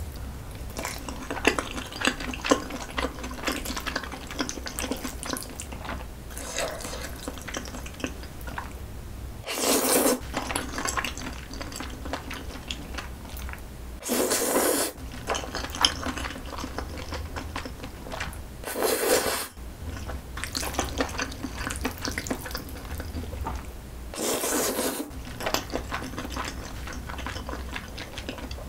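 Close-miked eating: wet chewing and mouth clicks on jjajangmyeon noodles in black bean sauce, with four loud slurps of noodles about every four to five seconds.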